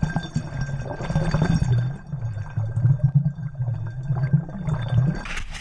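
Muffled water sounds picked up by a camera in an underwater housing: a low, wavering rumble with faint sloshing, and a short louder crackle near the end.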